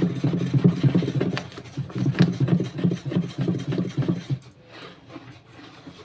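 Wooden spatula stirring a liquid soap mixture in a plastic tub, rubbing and swishing in quick repeated strokes against the tub. The stirring eases off about four seconds in.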